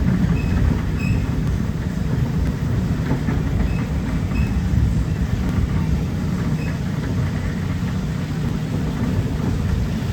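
Steady low rumble of a moving vehicle, with a few faint short high squeaks scattered through it.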